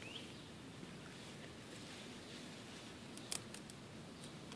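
A quick run of sharp, crisp clicks about three seconds in: a baby eastern cottontail rabbit biting and chewing through dandelion stems close by. A bird gives one short rising chirp at the very start, over a steady low background noise.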